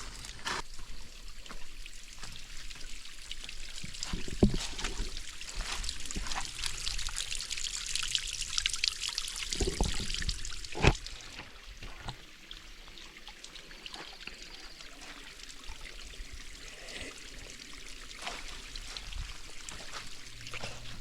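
Water trickling and pouring, strongest through the first half and quieter after about twelve seconds, with a few scattered knocks, the sharpest about eleven seconds in.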